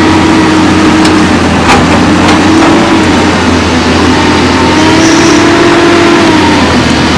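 Cat hydraulic excavator's diesel engine running under load as the boom lifts the bucket, its pitch wavering slightly. A couple of light knocks come about two seconds in.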